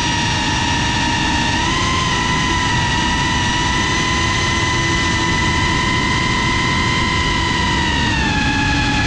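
FPV quadcopter's brushless motors and propellers whining at a steady throttle, over rushing air noise. The pitch lifts slightly about two seconds in and drops a little near the end.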